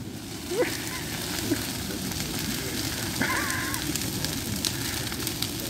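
Brush bonfire just doused with gasoline, burning in a tall column of flame: a steady rushing noise full of sharp crackles and pops.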